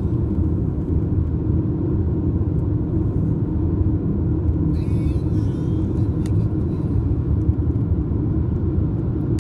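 A car driving at highway speed, heard from inside the cabin: a steady low rumble of road and engine noise. About halfway through there is a brief faint higher-pitched sound and a click.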